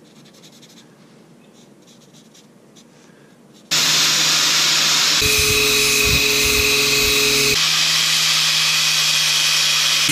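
Faint scratching of a marker pen on wood, then about four seconds in an angle grinder starts suddenly and runs loud and steady, grinding down the end of an African mahogany spear shaft to taper it.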